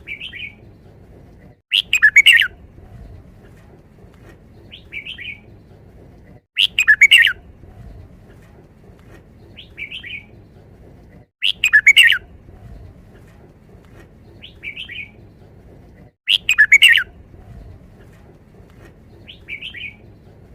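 Red-whiskered bulbul repeating its five-syllable song phrase: four loud, rich phrases about five seconds apart, each about a second long, with a short softer call between each pair.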